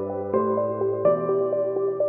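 Background music: calm ambient melody, the chord changing about every half second over a held bass note.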